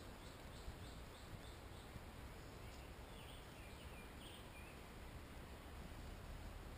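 Faint woodland ambience: a steady low hiss with a few short, high bird chirps scattered through, several in quick succession near the start and a few more about halfway.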